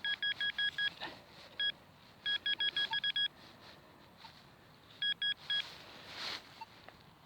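Metal detector signal tone beeping in rapid pulses, about eight a second, over a shallow target, in three short runs with gaps between them. A soft scrape comes near the end.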